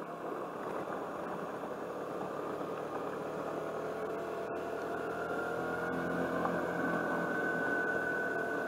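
Suzuki Burgman 200 scooter's single-cylinder engine running under way on a gravel road, with a steady rushing noise. The sound grows slowly louder, and a thin whine comes in about halfway through, rising a little in pitch.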